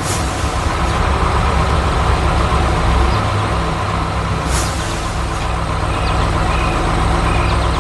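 Heavy diesel construction machinery running steadily with a low engine rumble, with a brief hiss about halfway through.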